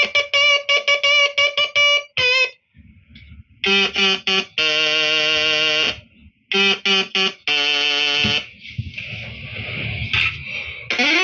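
Music led by guitar: short runs of separate plucked notes and held chords, broken by brief pauses.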